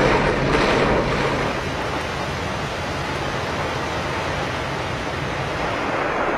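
Heavy rain pouring down, a steady dense hiss, a little louder in the first second or so.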